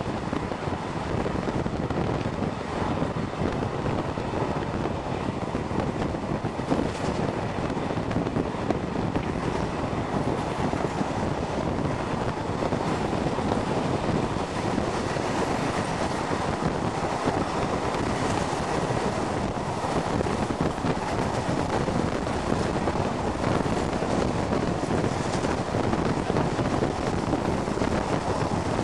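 Steady rush of wind on the microphone over the rumble of a train running at speed, heard from an open carriage window.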